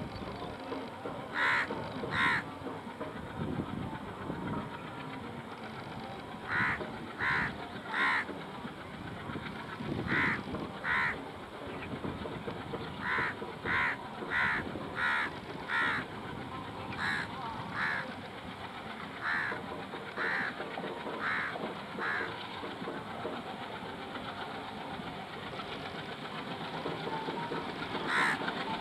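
Crows cawing repeatedly, in runs of two to six short calls, over the low steady rumble of an approaching ALCO WDG-3A diesel freight locomotive.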